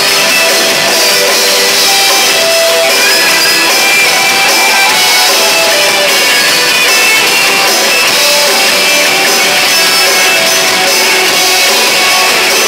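Loud live rock band playing, with electric guitars strummed over a drum kit.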